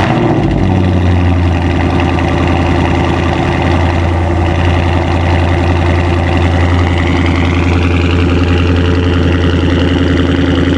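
2020 Dodge Charger Scat Pack's 6.4-litre HEMI V8 idling steadily through its factory 3-inch exhaust tips with the mid muffler deleted, a loud, deep exhaust note that cuts in suddenly.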